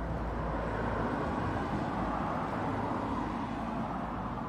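Road traffic noise: a steady rushing that swells slightly in the middle and eases off.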